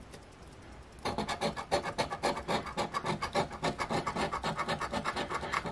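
Scratch-off lottery ticket being scraped, the coating rubbed off the winning-numbers area in rapid back-and-forth strokes that start about a second in.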